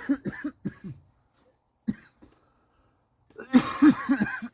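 A man coughing in fits: a run of short coughs at the start, a single cough a little before two seconds in, and another run of coughs from about three and a half seconds in.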